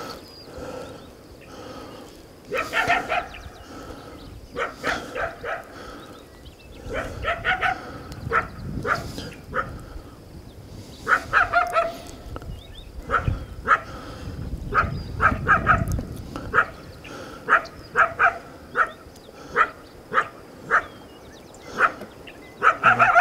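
Coyote barking and yipping: clusters of sharp raspy barks, some trailing off into short falling notes, then single barks about once a second. A low rumble runs under the middle stretch.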